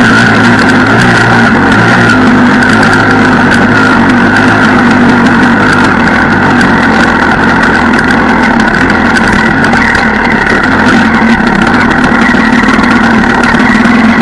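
Enduro motorcycle engine, heard loud from on board the bike, running at a fairly steady note while riding a muddy trail, with many small knocks and rattles throughout from the rough ground.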